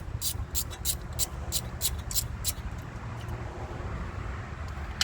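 Hand tool working on a truck's wheel hub: a run of short, rasping metallic strokes about three a second that stops about two and a half seconds in, then a single sharp click at the very end, over a steady low rumble.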